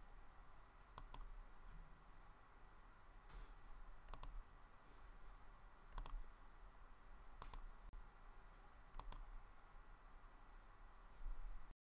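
Faint computer mouse clicks, mostly in quick pairs, five times spaced a second or two apart over quiet room tone; the sound cuts off abruptly near the end.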